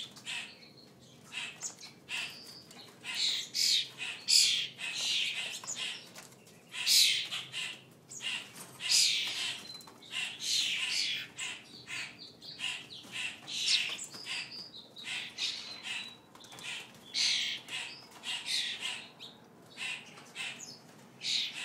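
A room of captive songbirds (starlings, sparrows, finches, robins and grackles) calling over one another. Harsh, raspy squawks come every second or so, mixed with a few short thin whistles.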